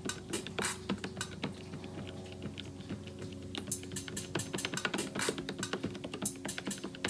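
Drum samples triggered from a Roland SP-808 sampler's pads: a quick, irregular run of short, clicky hits over a steady low hum.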